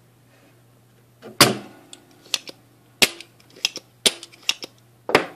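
Spring-loaded solder sucker (desoldering pump) snapping as its plunger fires, sucking molten solder out of a tube-socket pin hole on the amp's circuit board. A loud snap about one and a half seconds in, then several more sharp clicks and snaps about a second apart as the pump is re-cocked and fired again.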